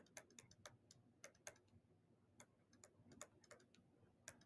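Faint, irregular clicks and taps of a stylus on a tablet screen during handwriting.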